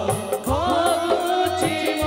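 Odia song playing: a singing voice over a steady drum beat with cymbal strokes.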